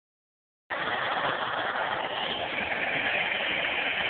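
Gas soldering torch burning with a steady hiss as its flame heats a copper pipe joint. The hiss starts suddenly under a second in.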